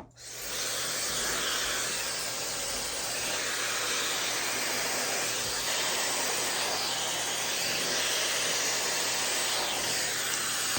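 Hand-held hair dryer with a 1400-watt brushless motor running, a steady rush of blowing air that starts within the first half second.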